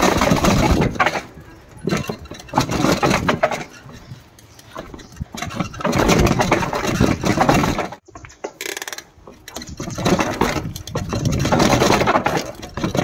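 Riding noise from a mountain bike on a rough trail: irregular surges of rushing noise with rattling clicks, cutting out briefly about eight seconds in.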